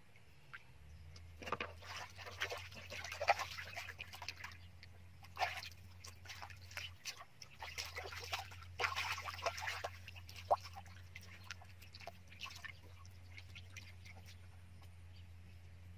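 Hands splashing and sloshing in shallow muddy water while grabbing fish, in two busy spells of irregular splashes with quieter scattered splashes between them. A steady low hum runs underneath.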